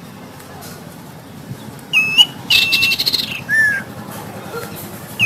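Common iora (cipoh) whistling: after a quiet start, a few clear, long whistled notes begin about two seconds in, mostly one steady high pitch, with a single lower, sliding note after them.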